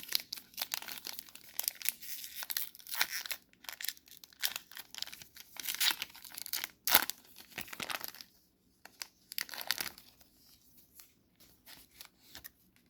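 Wrapper of a 2024 Topps Heritage baseball card pack crinkling and tearing as it is handled and opened, in dense sharp crackles that thin out to a few quieter ones over the last few seconds.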